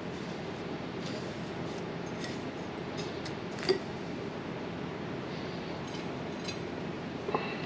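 Metal fork tapping and scraping against a glass bowl while coating fish in panko crumbs, with scattered light clicks and one sharp clink about halfway through. A couple more light clicks come near the end, over a steady background hiss.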